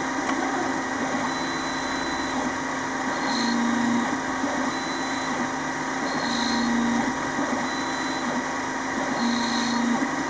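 CNC lathe running on a brass screw job, its drives and spindle humming steadily. A louder, deeper hum swells three times, about every three seconds, in a repeating machine cycle.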